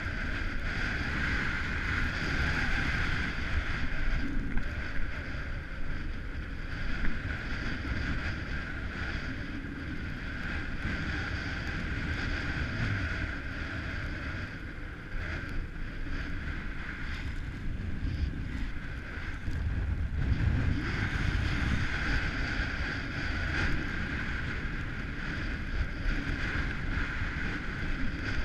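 Wind rushing over the microphone of a camera on a downhill skier, with the steady hiss and scrape of skis sliding over packed snow; the level rises and falls a little as the run goes on.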